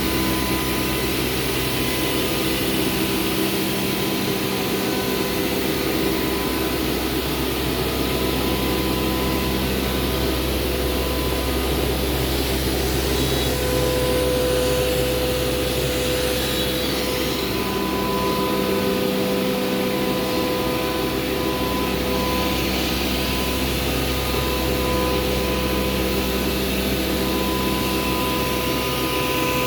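CNC router running while milling MDF fronts: a loud, steady machine whine and rush with several held tones, one of which grows stronger about halfway through.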